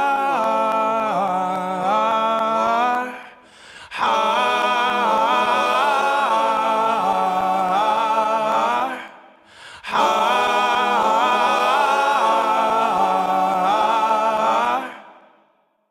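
Music: a wordless sung melody, humming-like, in three long phrases with short breaks between them, dying away about a second before the end.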